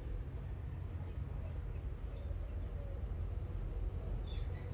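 Background noise: a steady low rumble with a few faint, short, high insect chirps, a small run of them about a second and a half in and one more near the end.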